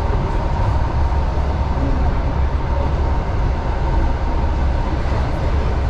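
Steady running noise inside a moving suburban electric train carriage: a deep rumble with a faint steady whine above it.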